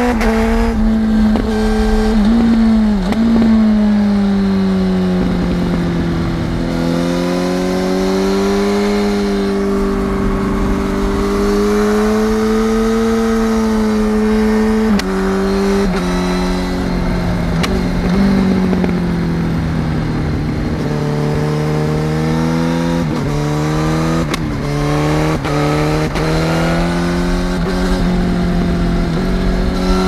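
Yamaha R1 inline-four engine through a Shark aftermarket exhaust, heard from the rider's seat while under way at moderate revs, with wind rush underneath. The pitch sags and rises with the throttle, with an abrupt step about halfway through and a run of quick rises and drops near the end.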